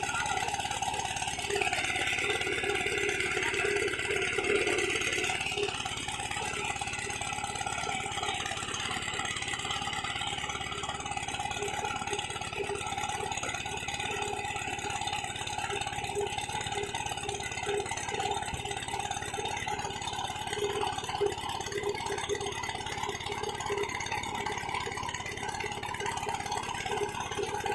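Small engine running steadily with a continuous rattle, with a brief higher hiss over it from about two to five seconds in.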